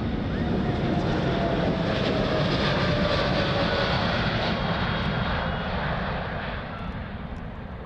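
Jet airliner taking off at full thrust, its engines passing with a steady roar and a whining tone that falls slowly in pitch; the noise fades over the last couple of seconds.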